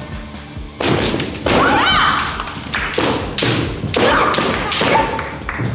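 Kendo fencers in a bout: loud, long kiai shouts that slide up and down in pitch, over several sharp clacks of bamboo shinai strikes and stamping steps on the wooden dojo floor.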